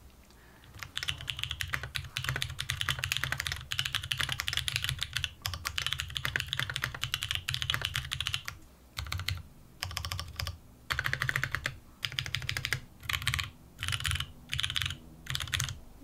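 Typing on a GHS.RAR 75% custom mechanical keyboard. A steady, fast run of keystrokes starts about a second in, then breaks into shorter runs with brief pauses in the second half.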